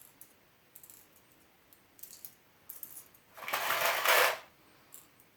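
Light clicks and clacks of an airsoft gas blowback pistol being handled. About three seconds in comes a hissing rush about a second long, the loudest sound here.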